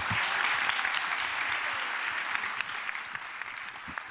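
Audience applauding, the clapping slowly tapering off.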